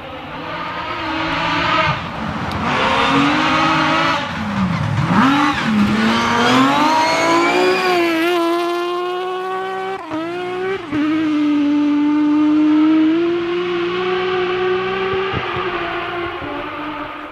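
Rally car engine under hard throttle: the revs dip about five seconds in, then climb steeply, with a brief drop near the ten-second mark like a gear change before being held high and fading near the end.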